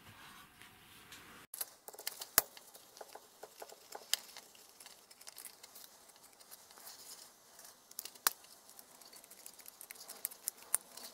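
Quiet small clicks, taps and scrapes of fingers and a thin tool working the cover screws on the aluminium can of an aircraft pressure transducer, with a few sharper clicks.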